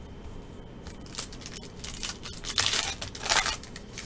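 Foil wrapper of a Panini Prizm baseball card pack being torn open and crinkled by hand, in a few short rips, the loudest between about two and a half and three and a half seconds in.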